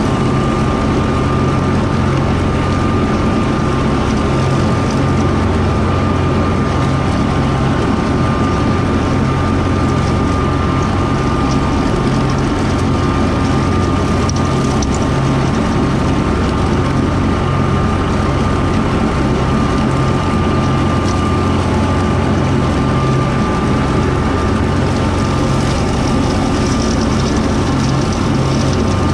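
Kubota M4-071D tractor's four-cylinder diesel engine running steadily under load while mowing with a Woods BW12 batwing rotary mower, with a steady high whine over the engine.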